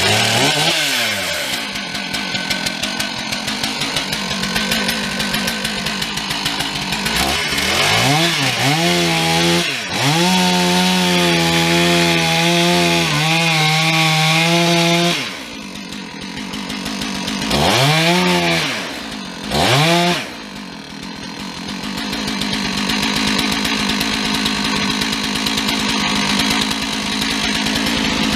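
Chainsaw running and cutting at full throttle. The engine drops back and revs up again several times, with rising and falling whines.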